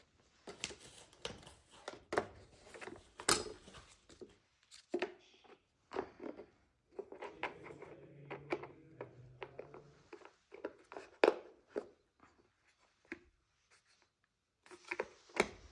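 Hard plastic pieces of a cat food puzzle maze knocking and clicking as they are handled and pushed into the holes of its pegboard base: an irregular run of sharp clicks and knocks, loudest about three seconds in and again about eleven seconds in.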